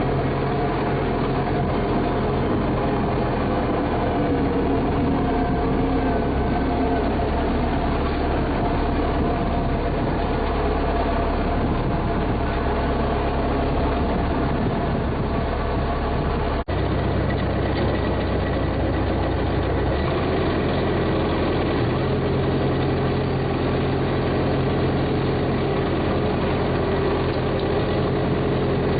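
A motor vehicle's engine running steadily, heard while driving. It cuts out for an instant a little past halfway, and its low hum shifts a few seconds later.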